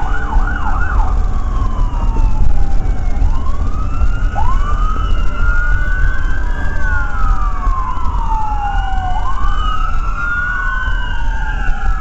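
Ambulance sirens: a fast yelp for about the first second, then at least two wails rising and falling slowly and overlapping out of step. A steady low road and engine rumble from the moving vehicle runs beneath.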